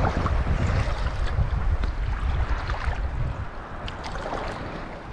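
Seawater sloshing and churning around a camera held at the surface while wading, a heavy low rumble with small splashy clicks that eases after about three seconds.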